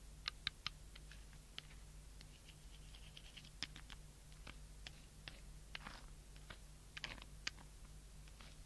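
Faint, irregular clicks and taps, some in quick pairs, over a low steady electrical hum.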